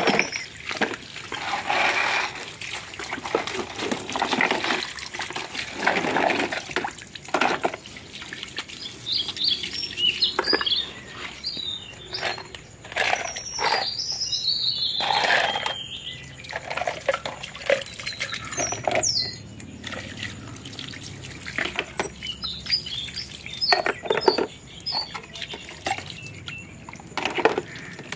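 Water splashing and dripping as plastic toy cars and trucks are rinsed by hand in a shallow puddle, in irregular surges, with short knocks of hard plastic.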